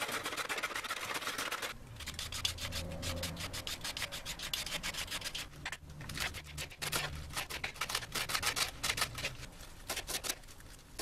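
Carrot rasped against a metal box grater for about the first two seconds. Then a knife chops lettuce on a wooden cutting board in a quick, even run of strokes.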